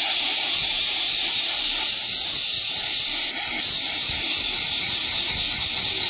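Greater coucal nestlings hissing steadily with their beaks gaping open.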